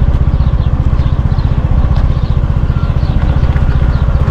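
Small scooter engine running steadily at low revs, with a fast, even pulse.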